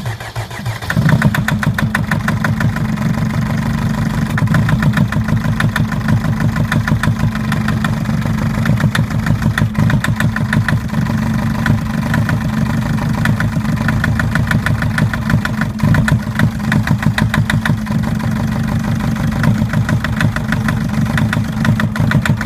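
Mercedes-Benz Sprinter's OM611 four-cylinder common-rail diesel starting, catching about a second in, then idling with a steady rhythmic knock. The knock comes from an injector that is not working.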